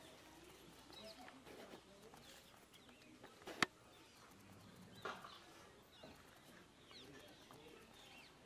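Quiet outdoor ambience with faint bird chirps scattered through it, a single sharp click about three and a half seconds in and a softer knock at about five seconds.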